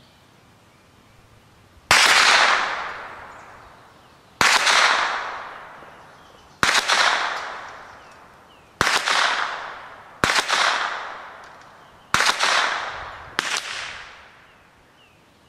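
Seven single rifle shots from an AR-15 firing .22 rounds through a CMMG .22 conversion kit, fired one at a time about 1.5 to 2.5 seconds apart, each followed by a long echo dying away.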